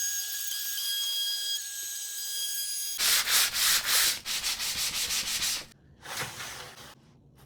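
A steady machine whine with several high tones, then, about three seconds in, rapid back-and-forth sanding strokes on wood, about four or five a second. The strokes stop for a moment and come back in a shorter burst before stopping.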